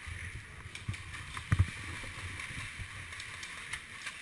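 Steady rustling and scuffing movement noise, with one sharp knock about a second and a half in and a few fainter clicks.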